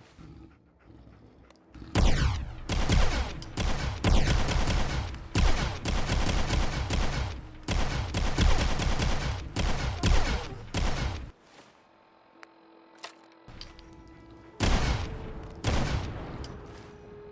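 Enforcer pistol firing a long, rapid string of shots for about nine seconds, then two more shots near the end that echo as they die away.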